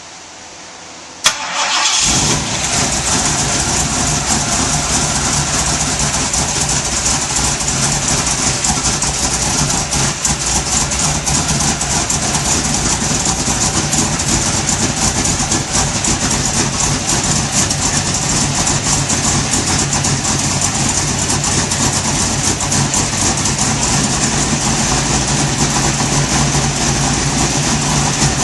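1970 Mercury Cougar XR7's 351 Cleveland V8 cold-starting: a sharp click about a second in, then the engine fires and catches within a second and runs steadily on choke.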